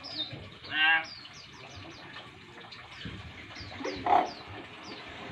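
Young Nias hill myna calling: one loud call with a wavering pitch about a second in and a shorter one at about four seconds, over a run of short, high, falling chirps.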